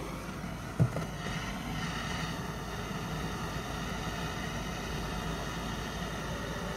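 Gas blowtorch lit with one short pop about a second in, then its flame burning with a steady hiss.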